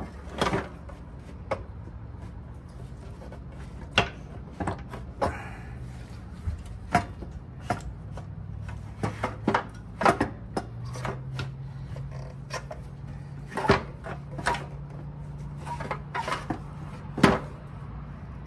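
Scattered knocks, clicks and clunks as a 1994 Yamaha Virago XV535's fuel tank is worked loose by hand and bumps against the frame and nearby parts, over a steady low hum.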